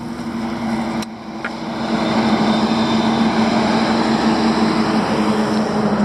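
A semi-trailer lorry passing close by on the road: engine drone and tyre noise that grow louder over the first two seconds and then hold steady.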